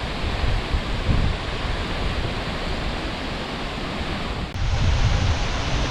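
Steady rushing hiss of a tall waterfall crashing into its pool. Wind buffets the microphone in low rumbles about a second in and again near the end, and a brief dropout about four and a half seconds in gives way to a brighter hiss.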